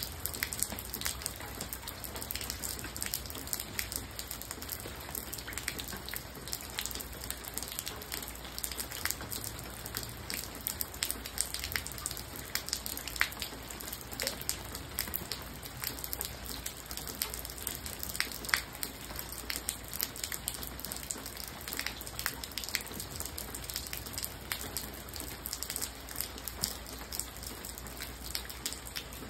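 Large raindrops falling on wet ground and puddles: many separate, sharp drop hits at an uneven pace over a steady hiss of rain.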